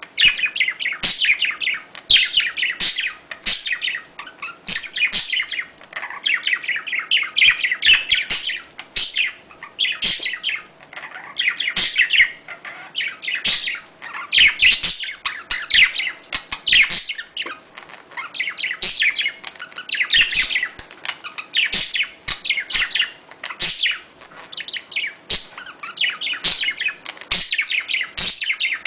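Budgerigars chirping and warbling in a fast, continuous chatter of rapid high chirps, broken by short pauses every second or two. It is the excited chatter of budgies in breeding mood, the kind of recording played to bring caged budgies into breeding condition.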